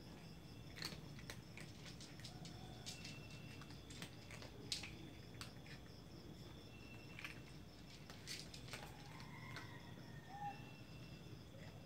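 Faint, irregular clicks and crunches of several domestic cats eating from food bowls, over a steady high-pitched pulsing trill in the background.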